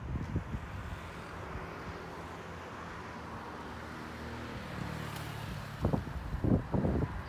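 Motor vehicle engine running amid street noise, with wind buffeting the microphone; a few low thumps come near the end.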